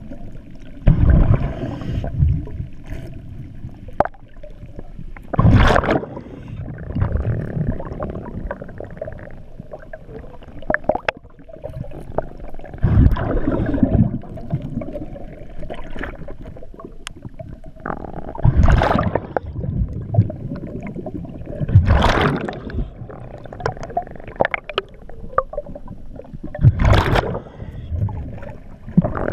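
A scuba diver's regulator breathing underwater: exhaled bubbles burst out in loud gurgling rushes every few seconds, with quieter inhalation hiss between them.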